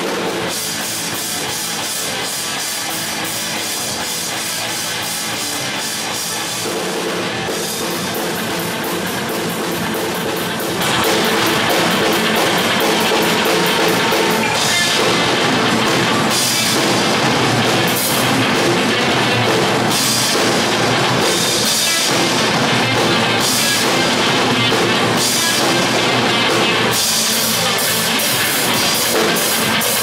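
Instrumental heavy-metal band playing live: drum kit, electric bass and electric guitar. The band comes in louder and fuller about eleven seconds in.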